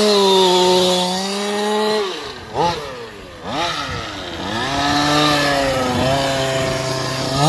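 King Motor X2 1/5-scale truck's 36cc two-stroke petrol engine running hard at high revs, then dropping off and being blipped twice between about two and four seconds in, before settling at a lower, steady speed.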